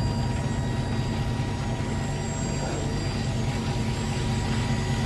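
Sand delivery truck's engine running steadily with a low, even drone.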